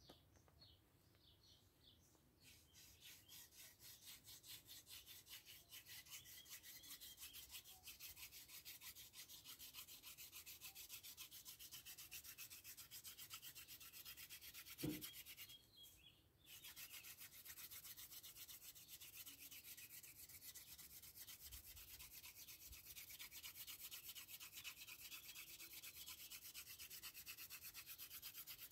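Hand-drill friction fire: a wooden spindle twirled back and forth between the palms, its tip grinding in the notch of a wooden hearth board with a faint, fast, even rubbing rhythm that begins a couple of seconds in. About halfway through, the rubbing stops briefly after a single knock, then carries on.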